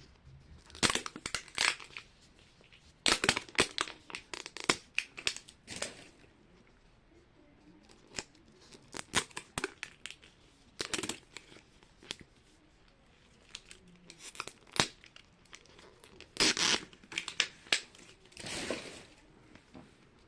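Plastic Mini Brands capsules and their wrapped packages being opened by hand: plastic crinkling and tearing with sharp clicks, in several short spells separated by quieter pauses.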